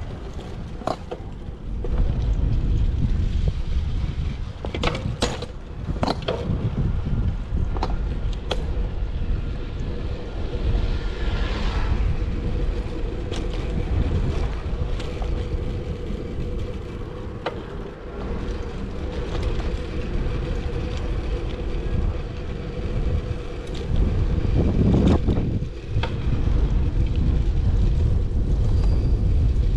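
Wind buffeting a chest-mounted GoPro's microphone while riding a road bike, a steady low rumble that swells in places, with a few sharp clicks and knocks scattered through it.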